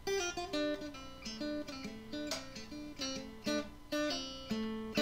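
Intro music on acoustic guitar: a picked run of quick plucked notes, ending on a held, ringing chord near the end.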